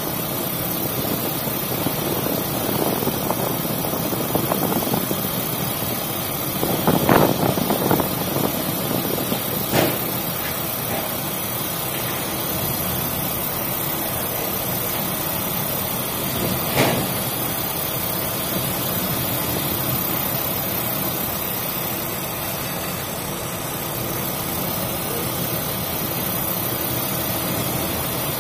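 A ship's engine running steadily under a constant rush of wind and sea noise, with a few louder thumps, the biggest about seven seconds in.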